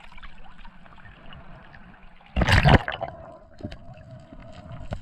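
Water sloshing and gurgling around the camera, with one loud rushing burst about two and a half seconds in.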